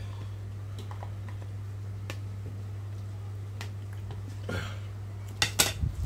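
Scattered light clicks and taps of a plastic spoon against a plastic tub while eating, with a sharper clatter about five and a half seconds in as the spoon is set down on a ceramic plate. A steady low hum runs underneath.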